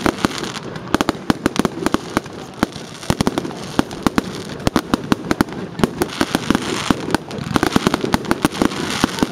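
Aerial fireworks going off: a dense, irregular crackle of many sharp pops per second from bursting shells and crackling stars, with louder bangs scattered throughout.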